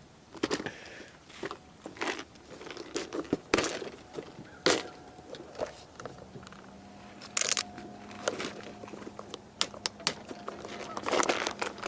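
Rustling and crinkling handling noise with many short, irregular clicks, typical of gear and packaging being handled while packing up. A faint steady hum comes in about halfway.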